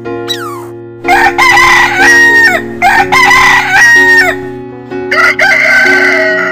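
Rooster crowing three times, each crow long and held before dropping off at the end, the last one the longest, over gentle piano background music.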